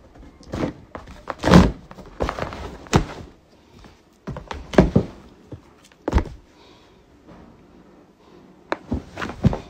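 Cardboard shipping box being handled and bumped close to the microphone: a string of irregular dull thunks, the loudest about one and a half seconds in.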